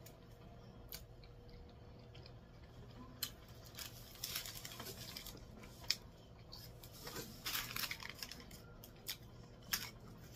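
Paper food wrapper crinkling and rustling in irregular bursts as it is handled, beginning about three seconds in.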